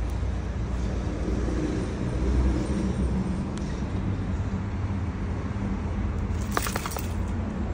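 Steady low rumble of motor traffic, with a brief high squeak about six and a half seconds in.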